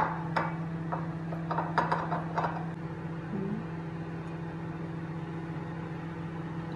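Irregular small clicks and rattles from handling a green glass olive-oil bottle and a non-stick frying pan on a gas hob, a sharp click at the start and a quick cluster of them about two seconds in. After that only a steady low hum.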